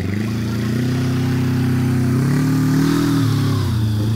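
Small ride-on garden tractor engine running under load as it tows a sailing boat on its trailer through mud; it revs up about two seconds in, then drops back near the end.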